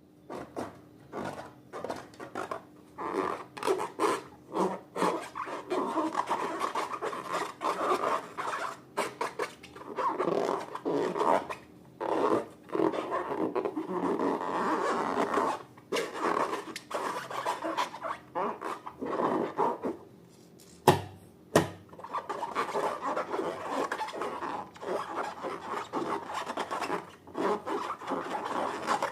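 Slime being mixed and worked: a long run of irregular rubbing, rasping strokes, with two sharp clicks about two-thirds of the way through.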